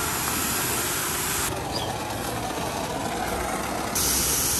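A steady low engine rumble under an even hiss of outdoor noise, with the hiss growing slightly louder about four seconds in.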